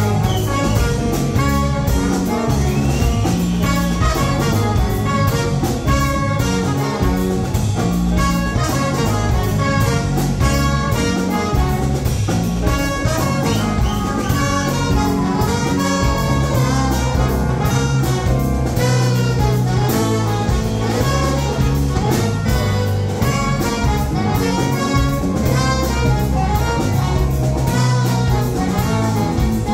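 Live jazz band playing: a horn section of trumpet, alto and tenor saxophones and trombone over drums, piano and bass, with a steady beat.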